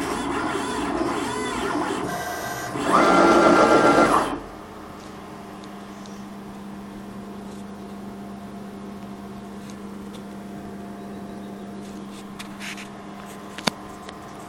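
Stepper motors of a DIY CNC machine whining in shifting tones as the axes move, loudest in a short fast move about three seconds in, and stopping after about four seconds. A steady low hum remains, with a few faint clicks and one sharp click near the end.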